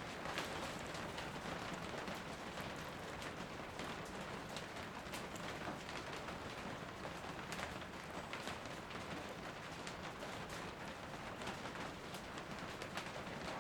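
Steady rain falling, heard as an even hiss with scattered sharp drop hits.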